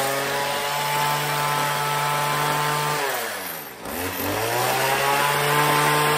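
Two-stroke hedge trimmer engine running at high revs; about three seconds in the revs fall away almost to a stall, then climb back to full speed. The engine will not hold an idle, which the owner sets out to cure by adjusting the carburetor's low and idle screws.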